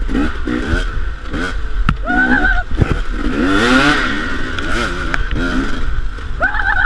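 KTM dirt bike engine revving up and down under throttle while riding a trail, its pitch rising and falling every second or so and climbing highest around the middle. A couple of sharp knocks sound about two to three seconds in.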